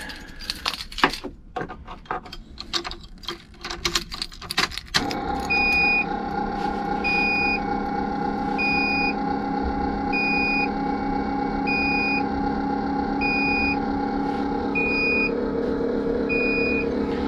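Ignition keys jangle and click as the key is turned to the on position with the engine left off. About five seconds in, a steady hum comes on with the ignition, and over it a dashboard warning chime beeps evenly about every one and a half seconds.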